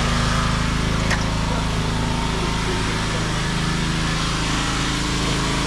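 An engine running steadily at a constant speed, with a faint click about a second in.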